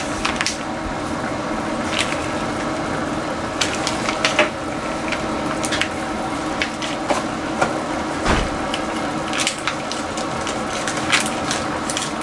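Crackling plastic packaging and sharp snaps as a bar of Japanese cream-stew roux is broken into blocks and popped out of its tray, over a steady hum.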